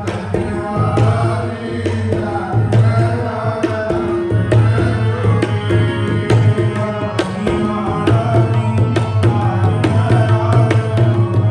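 Sikh kirtan: two harmoniums sounding sustained reedy chords under a man's sung hymn, with tabla strokes keeping a steady rhythm.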